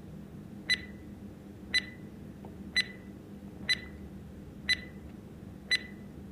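Quiz countdown-timer sound effect: a short, sharp tick with a brief high ping about once a second, six in all, over a faint steady low hum.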